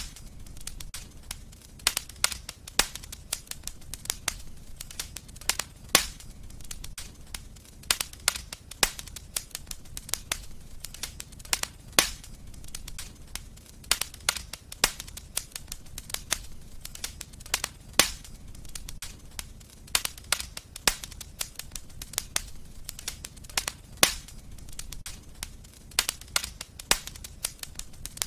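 Fireplace wood fire crackling and popping, many sharp snaps over a low steady rumble, with louder pops about every six seconds.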